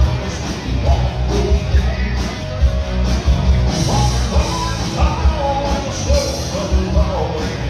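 Live country band playing: drums, electric and acoustic guitar, with a male lead vocal singing over them.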